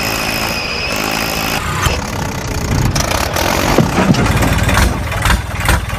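An engine running steadily, turning into a rhythmic chugging of about three to four beats a second near the end.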